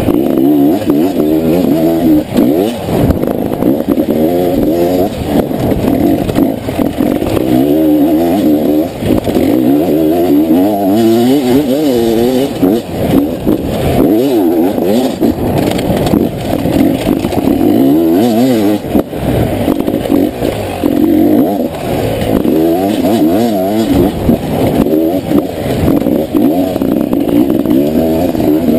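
Beta 300 two-stroke enduro motorcycle engine under hard riding, its pitch rising and falling every second or two as the throttle is worked, with scattered knocks and clatter from the bike over rough ground.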